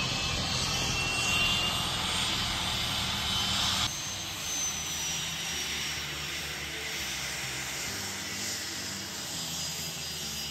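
Jet engines of a small twin-engine business jet whining as it taxis. About four seconds in the sound drops abruptly in level, and after that a high whine falls slowly in pitch.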